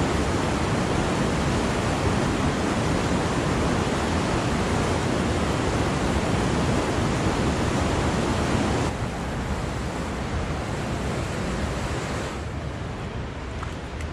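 Steady rush of water from a rain-swollen desert wash and waterfall. It drops suddenly in level about nine seconds in and again a few seconds later.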